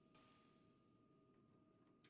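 Near silence: faint room tone with a faint steady tone.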